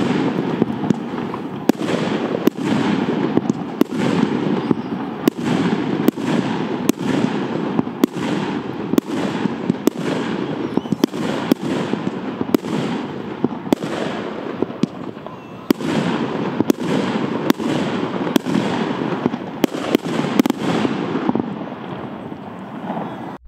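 Piromax Titanium Salute 25-shot, 25 mm calibre firework battery firing its salutes: a regular string of sharp bangs, about one a second, with rumbling echo between them, stopping abruptly at the last shot.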